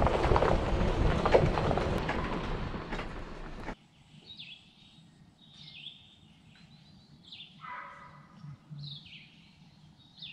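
Pickup truck driving on a gravel road, a loud steady rush of tyre and wind noise that cuts off suddenly about four seconds in. Then quiet, with a songbird calling repeatedly in short, downward-sliding notes.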